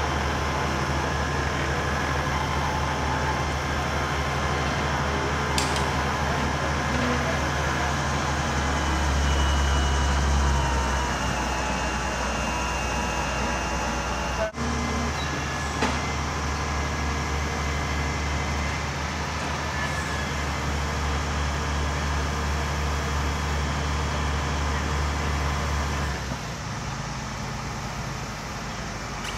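A steady, low engine-like drone, fading somewhat near the end.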